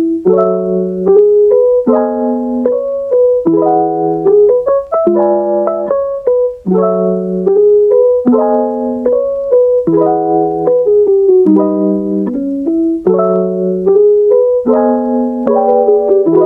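Background piano music: gentle chords struck in a steady, repeating pattern, about one every second and a half.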